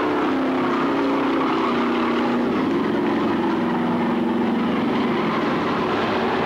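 Stock car race engines running together around the track, a steady droning note that sags in pitch and then picks up again about halfway through.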